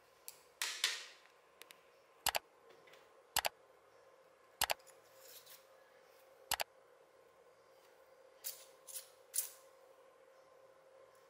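A short scrape, then four sharp clicks one to two seconds apart, then three short scraping strokes about half a second apart near the end.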